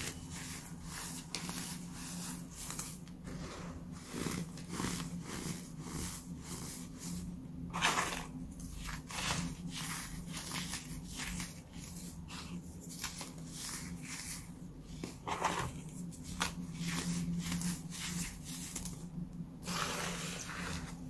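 Baking soda crunching and squeaking as fingers squeeze and crumble it, a steady run of irregular little crunches with a few louder ones.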